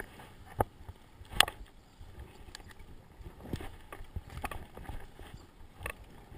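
A few sharp knocks and clicks at irregular intervals over a faint rustling background, the loudest about a second and a half in, with no engine running.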